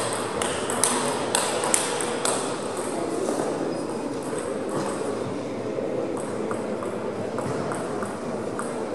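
Table tennis balls clicking off bats and tables: a quick run of sharp clicks over the first two seconds or so, then fainter scattered clicks over the steady hum of a large hall.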